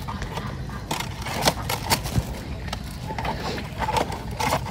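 Hands fiddling at the top of a black box snake trap, making irregular small clicks, taps and scrapes.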